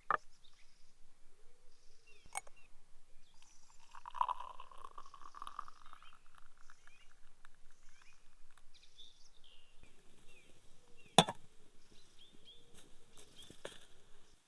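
Outdoor ambience with small birds chirping, broken by a few sharp knocks; the loudest knock comes about eleven seconds in.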